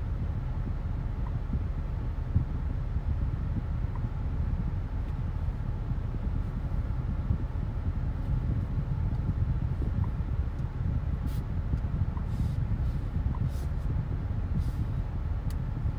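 A BMW X3 M Competition driving at a steady pace: a constant low rumble of engine and road noise with no revving. A few short hisses come in the last few seconds.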